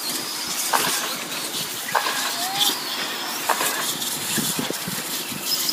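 Electric 1/10-scale short course RC trucks running on the track: a steady high hiss of motors and tyres, broken by a few sharp knocks about a second apart.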